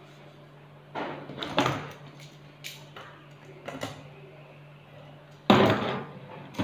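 Hard objects handled on a wooden workbench: a few light knocks and scrapes as a pine board and a steel locking C-clamp are moved about, then a loud metallic clatter near the end as the clamp is set down on the bench. A faint steady low hum runs underneath.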